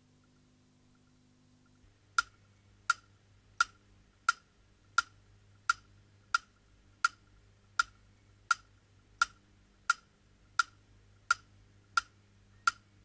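A steady series of sharp ticks, about three every two seconds, starting about two seconds in. Each tick has a short ring to it, much like a clock's tick-tock or a woodblock.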